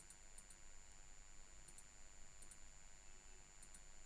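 Near silence: faint room tone with a thin steady high whine and a few pairs of very faint ticks.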